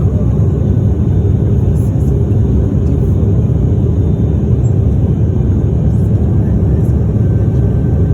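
Steady, loud engine drone and rumble heard inside the cabin of an aircraft in flight.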